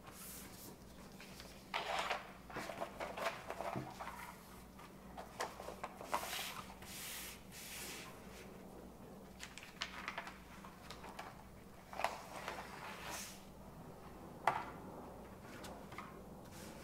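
Rustling and crinkling of a thin plastic inner sleeve as a vinyl LP is slid into it, pressed on and slid back out, in irregular bursts, with a sharp tap near the end.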